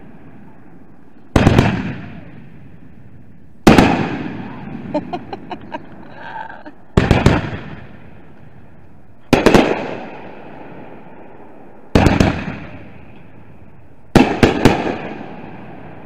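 Fireworks going off: six loud bangs about two to three seconds apart, each a sharp double or triple crack that echoes away, with a quick run of small crackling pops after the second bang.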